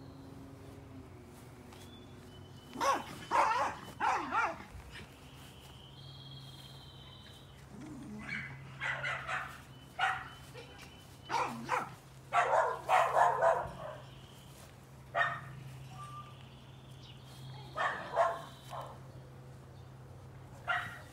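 A dog barking repeatedly in short clusters of barks, with pauses of a few seconds between them.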